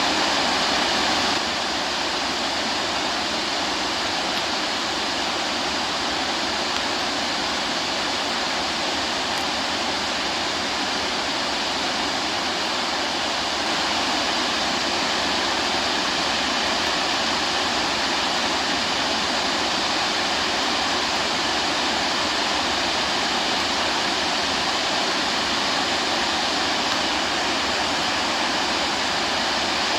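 Steady rushing of falling water from a waterfall, an even roar with no rhythm. It drops a little in level about a second and a half in and comes back up around halfway.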